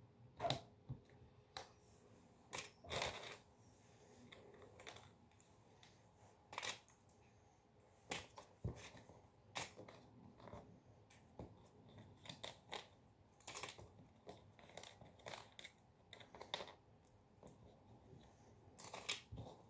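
Cardboard jigsaw puzzle pieces being picked through and handled: faint, scattered light clicks and rustles at irregular intervals.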